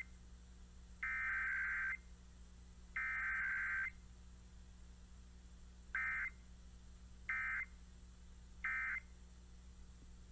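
Emergency Alert System SAME digital data tones of a Required Weekly Test. Two header bursts about a second long each, a second apart, then three short end-of-message bursts about a second and a half apart.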